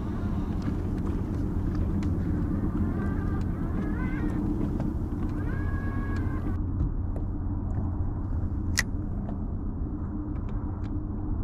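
Steady low rumble with a hum, from a boat's Minn Kota electric trolling motor running, with short whirring tones that rise and fall between about three and six seconds in. A single sharp click comes near nine seconds in.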